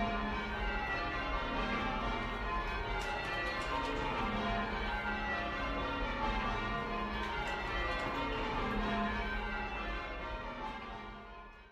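A ring of ten church bells rung in changes, heard from inside the ringing room: the bells strike one after another in quick succession, and the deepest bell sounds every couple of seconds. The ringing fades out near the end.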